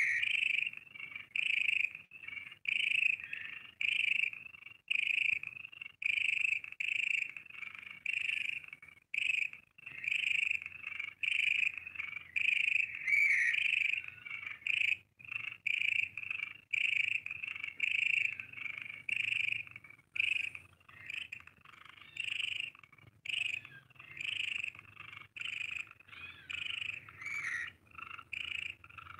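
Siamese kitten purring loudly while being stroked, the purr pulsing in steady swells about once a second.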